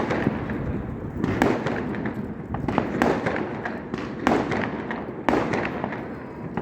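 Fireworks going off: a string of sharp bangs about a second apart, with a rumbling crackle between them.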